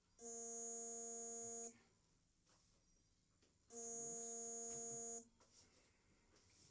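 An electric buzz at one steady pitch, switched on twice for about a second and a half each time, with about two seconds of quiet between.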